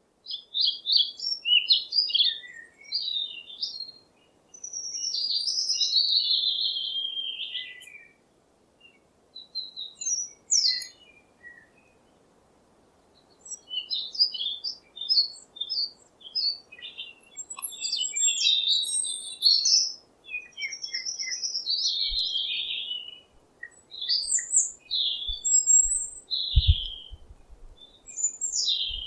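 Several songbirds chirping and singing in overlapping bursts of short high chirps and warbled phrases, with a brief lull about midway. A few faint low thumps come near the end.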